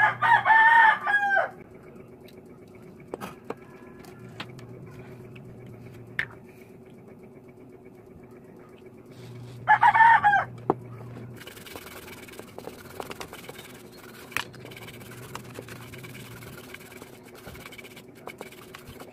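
A rooster crows twice, at the start and again about ten seconds in. Later an aerosol cleaner hisses in short sprays for about five seconds as it is sprayed onto a dirty amplifier circuit board.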